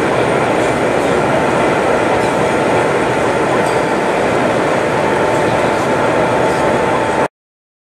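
O gauge model diesel locomotives with DCC sound running along the layout: a steady mix of diesel engine sound and wheel noise on the track, with a steady whine. It cuts off abruptly near the end.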